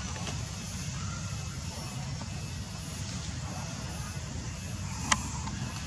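Steady low rumble with a hiss above it, and one sharp click about five seconds in.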